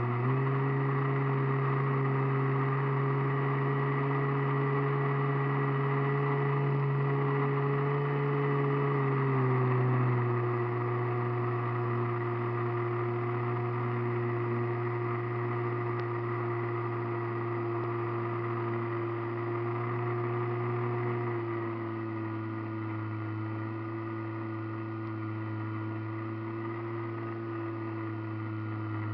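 Radio-controlled model airplane's motor and propeller running steadily, heard from a camera on board the plane. The pitch steps slightly lower about ten seconds in and again about twenty seconds in, a little quieter the second time, as the throttle is eased back.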